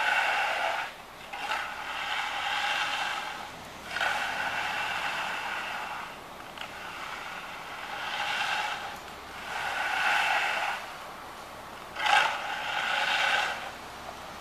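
Long-handled concrete finishing tool scraping across a freshly poured sidewalk slab in a series of long strokes, each a second or two long with short pauses between them, about six in all.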